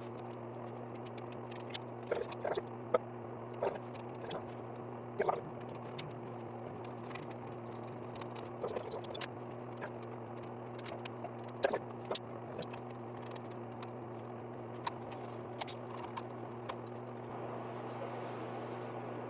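Scattered small clicks and knocks of plastic bidet-seat mounting hardware being handled and hand-tightened onto a toilet, over a steady low electrical hum.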